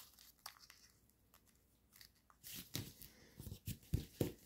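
Foil-backed origami paper being handled and creased by hand: a few faint ticks, then from about halfway irregular crinkling and sharp creasing crackles.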